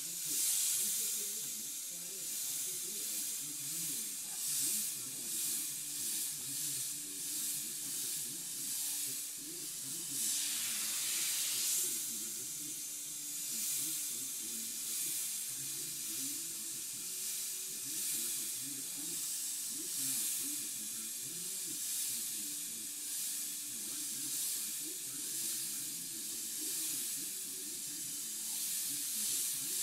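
Airbrush hissing in short, repeated spurts as the trigger is worked to spray paint lines, with one longer, fuller spray about ten seconds in.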